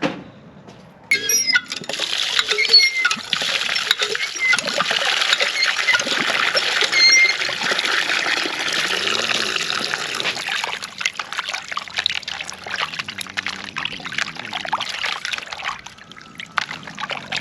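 Water pouring and splashing, starting suddenly about a second in and thinning out over the last few seconds.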